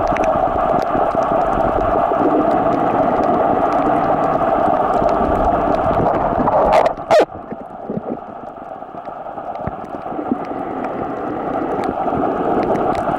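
Underwater noise picked up by a camera filming on a coral reef: a steady muffled rushing with faint crackling clicks. Two sharp knocks about seven seconds in, after which the rushing is quieter for a few seconds before building back up.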